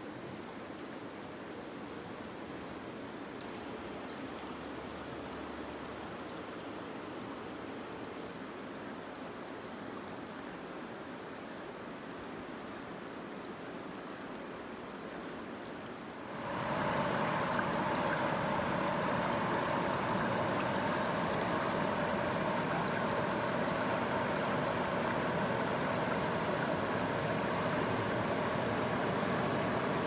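Mountain river water rushing steadily over rocks. A little over halfway through it turns suddenly louder and fuller, and stays that way.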